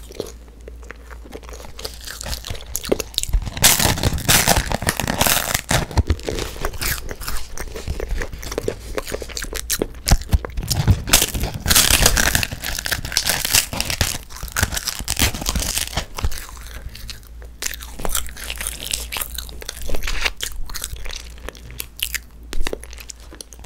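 Crisp bites and crunchy chewing of edible coloured paper, a thin wafer-paper sheet lightly toasted in a frying pan, which makes it crunch. The bites and chews come in repeated clusters, picked up close to the microphones.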